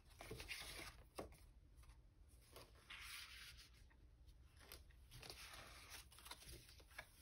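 Faint rustling and handling of paper and card, with a few light taps.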